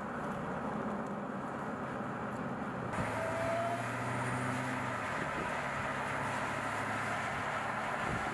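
Dodge Charger SRT Hellcat Redeye's supercharged 6.2-litre V8 running at a steady cruise, a low drone over road and tyre noise. The sound shifts abruptly about three seconds in, with more hiss on top.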